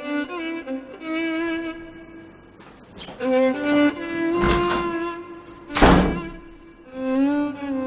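Dramatic score of sustained bowed strings, violin and cello, holding long notes that shift in pitch. Two heavy thuds cut across it about four and a half and six seconds in, the second the loudest.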